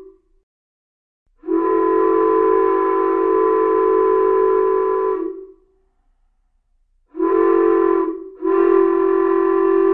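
Diesel locomotive air horn sounding a steady chord of several notes: a long blast, a short one about two seconds later, then another long one, following on from a long blast that ends just before. Long, long, short, long is the pattern of a train's grade-crossing warning.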